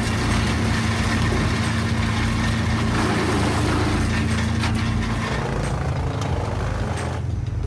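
Engine of a wood chipper running steadily at a constant pitch, with a change in its note about five seconds in.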